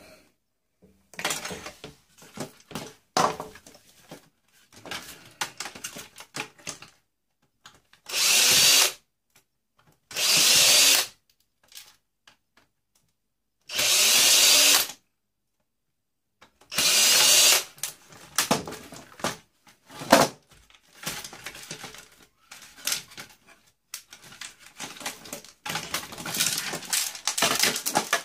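Power drill running in several short bursts of about a second each, with clicking and rattling of parts being handled in between.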